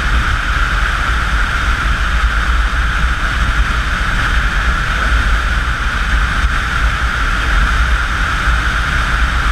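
Steady wind rush on a moving motorcycle at highway speed, with low buffeting on the microphone and the bike's engine and road noise mixed in.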